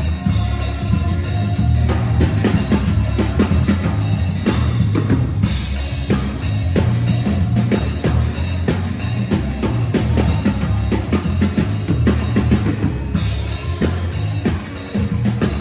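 Band music with a full drum kit (bass drum, snare) over a heavy bass line and sustained held organ chords, at a steady beat.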